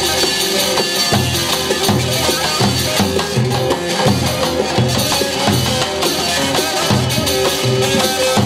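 Instrumental Turkish folk music played live: a davul bass drum beating a steady rhythm of about two beats a second under a keyboard melody.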